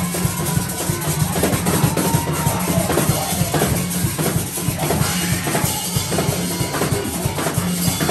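Live church worship music: drums beating a fast rhythm with a metal güira scraping along.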